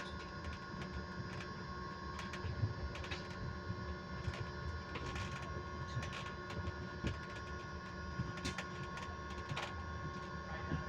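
Electric bus interior: a steady whine held on one constant pitch, over low road rumble with scattered clicks and rattles.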